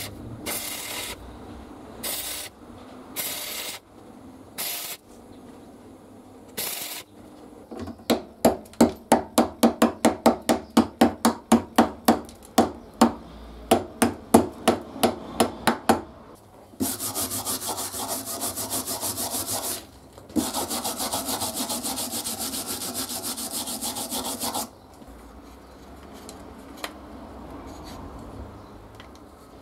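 Stick (arc) welding: about six short bursts of arc crackle in the first seven seconds. Then a hammer strikes the welded steel held in a vise, about two to three blows a second for some eight seconds, followed by two long spells of steady noise a few seconds each.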